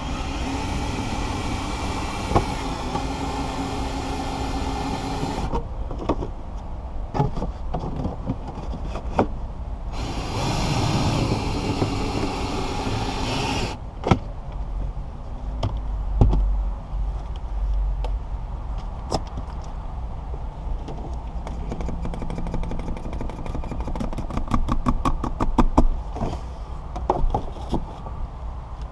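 Cordless power cutting tool running in two bursts, about five seconds and then about four, each stopping abruptly, as its blade cuts the soft urethane holding the windshield along the top edge. Between and after the bursts, light clicks and knocks of handling.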